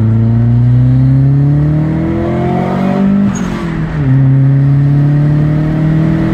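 BMW E30 318is four-cylinder engine accelerating hard. Its note climbs through one gear, drops at a gear change about three and a half seconds in, then climbs again in the next gear.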